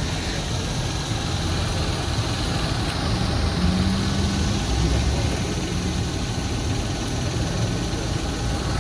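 Car engines idling in a steady low rumble.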